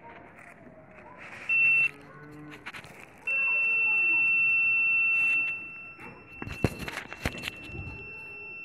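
Handheld digital satellite signal meter's buzzer sounding a steady high-pitched beep, with its signal buzzer switched on. A short beep comes about a second and a half in, then a long loud beep of about two seconds, after which the tone carries on more quietly. There are a few handling clicks of the cable and meter along with it.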